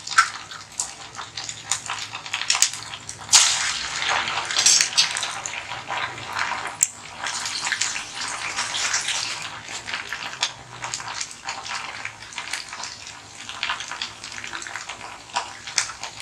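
Murukku dough deep-frying in hot oil in a stainless steel kadai: a steady sizzle thick with small crackles, louder for a couple of seconds about three seconds in.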